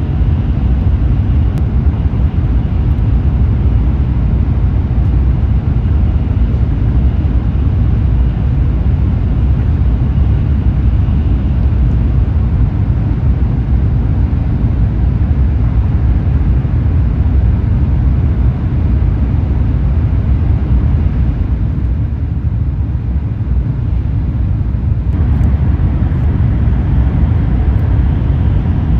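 Steady low rumble and hiss of a Shinkansen bullet train running at speed, heard from inside the passenger cabin. The higher hiss eases for a few seconds about three quarters of the way through.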